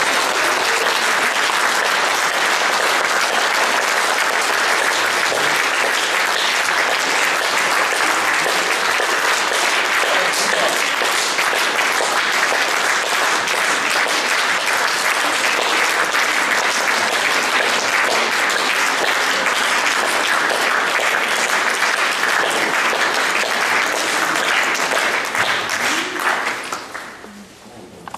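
Audience applauding: a dense, steady clapping of many hands that dies away near the end.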